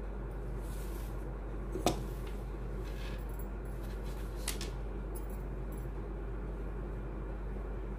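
Steady low background hum, with a sharp click about two seconds in and a fainter click a couple of seconds later.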